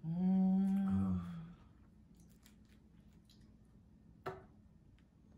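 A woman's long hummed "mmm" of enjoyment as she savours a bite of durian, held at a steady pitch for about a second and a half. Then quiet, with one small click about four seconds in.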